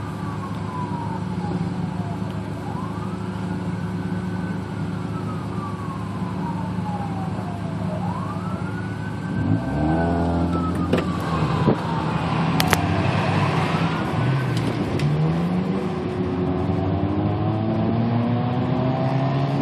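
An emergency-vehicle siren wailing, slowly rising and falling in pitch over cycles of about five seconds, over idling engines. About halfway through, and again near the end, a vehicle accelerates with a rising engine note.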